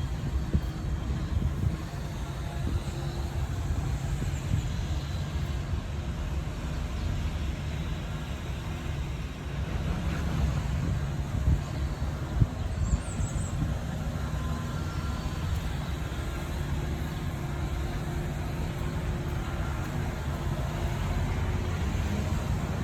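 Steady low rumble of city road traffic, with a brief high chirp about thirteen seconds in.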